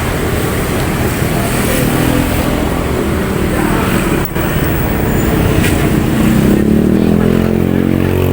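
Busy city road traffic, cars and motorcycles passing close by. In the last couple of seconds one vehicle's engine comes close and grows louder.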